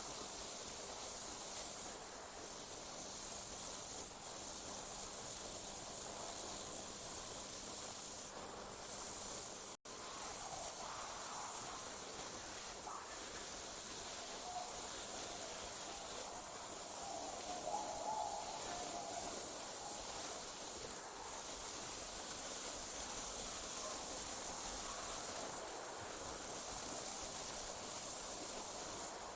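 Crickets trilling in a steady, high-pitched night chorus, dipping briefly every few seconds, with a momentary gap about ten seconds in.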